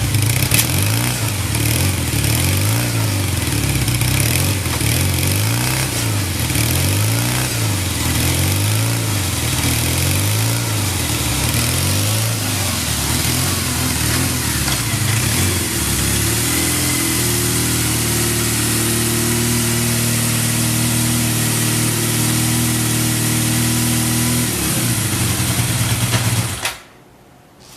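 Kawasaki Z650LTD's air-cooled inline-four engine revved up and down over and over, about once a second, then settling to a steady idle before being switched off near the end. It runs with no abnormal noise, as the seller states.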